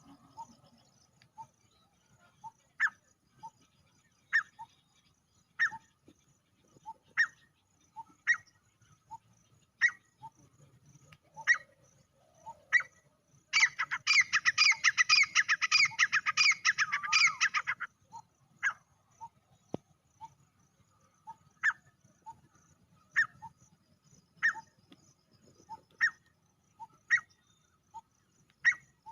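Male grey francolin calling: short, sharp notes repeated about every second and a half, with a rapid run of calls about halfway through that lasts around four seconds.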